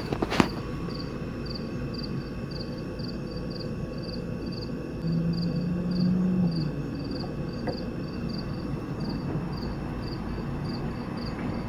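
Insect chirping: short, evenly spaced high chirps, about three a second, over a steady low hum.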